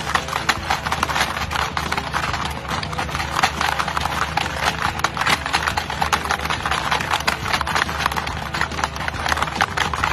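Hungry Hungry Hippos plastic board game being played: the hippo levers and jaws clack rapidly and without letup.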